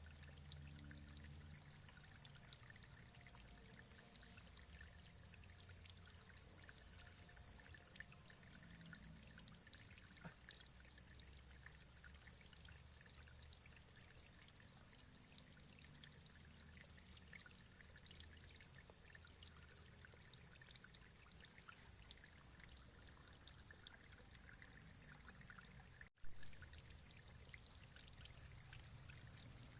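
Faint, steady running water, a continuous trickling flow. A brief dropout and a sharp click come a few seconds before the end.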